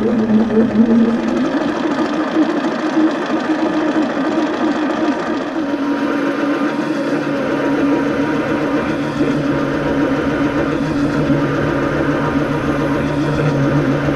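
Chinese mini lathe running steadily with a motor hum, a boring tool cutting inside a small metal part, with a shift in its tone about halfway through.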